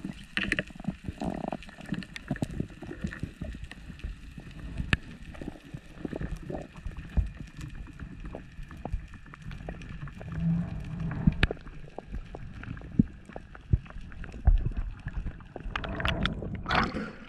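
Water sloshing and gurgling with many irregular clicks and low knocks.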